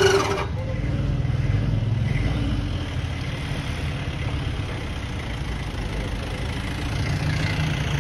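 Bugatti Type 35's straight-eight engine, just started: a high rev that cuts off about half a second in, then a low, uneven idle.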